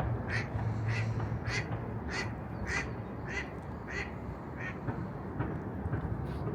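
A duck quacking in a series of about eight calls, roughly two every second, fading toward the end, over a low, steady city rumble.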